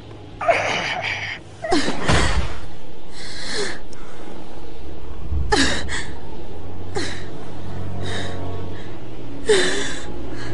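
A series of short, sharp gasps and strained breaths during a struggle, about five of them, each dropping in pitch. A low held music drone sounds underneath, growing in the second half.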